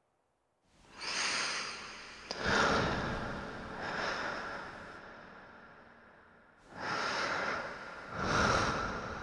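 A person breathing hard: five loud, noisy breaths of about a second each, starting about a second in, with a pause of over a second between the third and fourth.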